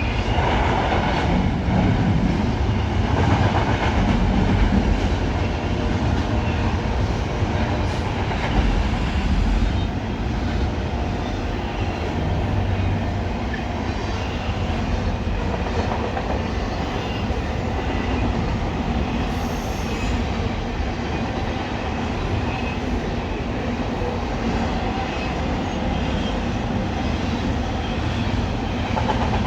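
Norfolk Southern intermodal freight train rolling past: a steady, loud rumble of steel wheels on rail from the passing cars, with scattered clicks.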